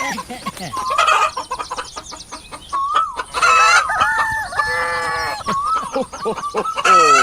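Chickens clucking, with a rooster crowing once in the middle.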